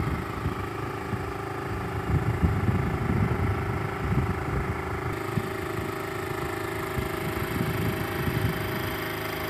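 Wind buffeting the microphone of a phone carried on a moving bicycle, a gusty low rumble that is strongest a couple of seconds in, with a faint steady hum underneath.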